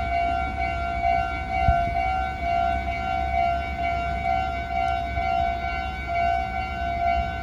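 Japanese railway level-crossing warning bell ringing steadily, one unbroken electronic tone, over a low rumble. It sounds while the crossing is closed to road traffic for passing trains.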